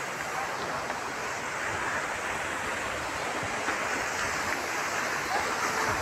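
Waterfall pouring onto rocks: a steady, even rush of falling water.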